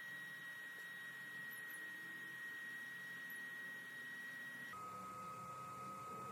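A steady high-pitched electronic whine over a faint low hum; about two thirds of the way through, the whine drops suddenly to a lower pitch and holds there.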